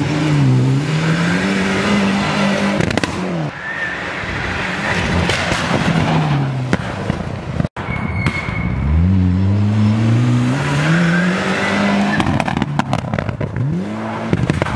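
Ford Escort RS Cosworth rally car's turbocharged four-cylinder engine revving hard under full throttle, the pitch climbing and dropping again and again through gear changes. It breaks off for an instant about halfway through, then a second run climbs again, with sharp crackles near the end.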